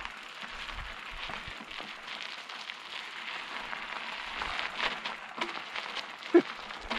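Mountain bike tyres rolling over a dirt and gravel trail, a steady crunch with small crackles that grows a little louder after about four seconds. A brief sharp noise stands out about six seconds in.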